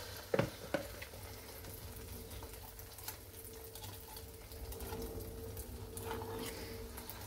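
Choux pastry dough shallow-frying in hot oil in a pan, a faint steady sizzle with fine crackles throughout, in oil that the cook reckons is probably a bit too hot at 190 degrees. Two sharp clicks about half a second in.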